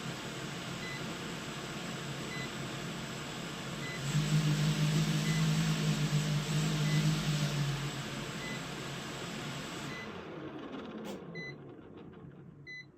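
Rebuilt Hubsan H501S quadcopter's motors and props spinning on the bench, with short beeps about every second and a half. About four seconds in they run up louder for a few seconds, then wind down in pitch and stop. Louder double beeps follow near the end.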